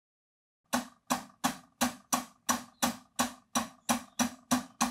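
A steady percussive beat: about a dozen sharp strikes, roughly three a second, each ringing briefly over a steady pitched tone, starting suddenly after dead silence and stopping abruptly near the end.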